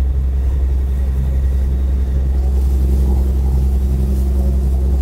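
Boat engine running under way with a steady, deep drone.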